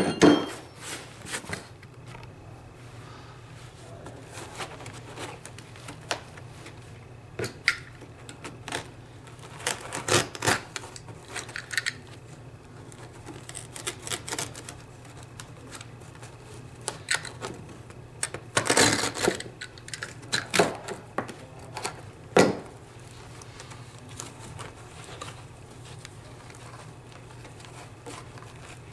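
Utility knife cutting through carpet, with rustling and scraping as the carpet is handled: scattered clicks and a few longer strokes, the strongest about ten seconds in and around nineteen seconds. A faint steady low hum runs underneath.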